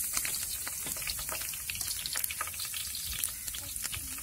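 Curry leaves, bay leaves and cumin seeds sizzling in hot oil: a steady hiss with frequent small crackles and pops.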